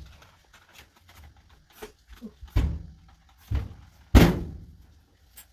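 A run of knocks and thuds, each dying away quickly, the loudest about four seconds in.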